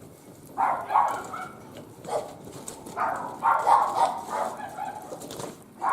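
A dog barking repeatedly in short bursts, over the faint crackle of a wood fire.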